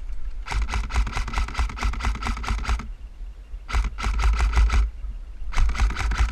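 Airsoft electric gun firing full-auto in three bursts of rapid shots. The first burst is about two seconds long and starts about half a second in, a shorter one comes near the middle, and a third starts near the end. A low rumble of wind or handling noise runs underneath.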